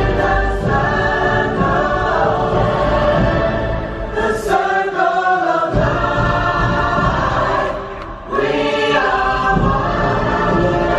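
Choral music: a choir singing long held notes over instrumental music. The sound dips briefly twice, about four and a half seconds in and again about eight seconds in.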